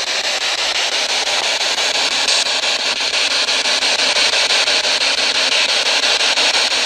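Radio static from a ghost-hunting spirit box sweeping through stations: a steady loud hiss chopped in a fast, even rhythm several times a second.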